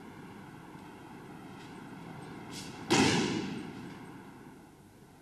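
A judoka thrown onto tatami mats landing in a breakfall: one loud sudden thud about three seconds in that dies away over a second or so.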